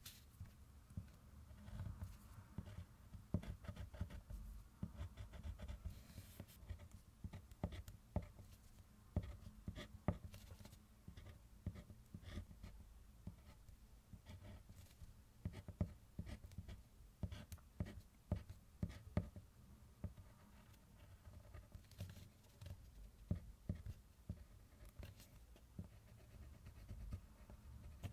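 Diamond colored pencil writing and colouring on kraft paper: a faint, irregular run of short scratchy strokes and light taps of the pencil tip.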